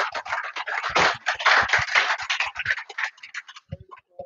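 Scratchy rustling and scraping right on the microphone, with low thumps mixed in, lasting about three and a half seconds and then stopping: handling noise on the microphone.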